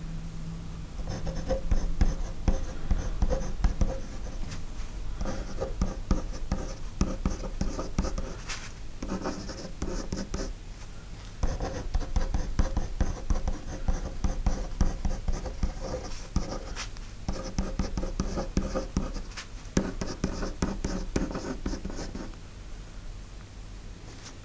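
Pencil writing on paper: quick scratchy strokes in runs, broken by short pauses between words.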